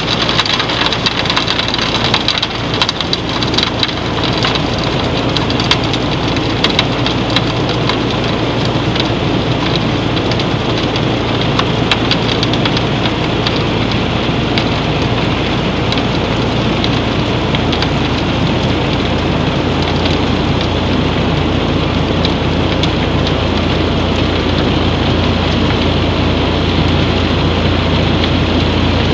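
Crystal potash being drawn out by a Vibrafloor vibrating silo-reclaimer floor: a steady rushing hiss of granules with a dense crackle of grains rattling, heaviest in the first few seconds. Under it runs a low machine hum that grows stronger past the middle.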